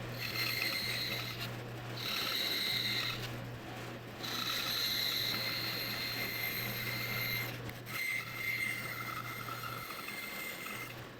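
Bandsaw running and cutting box-joint fingers in 3/4-inch Baltic birch plywood. Under the steady motor hum, a higher whine starts and stops about four times, with short breaks between.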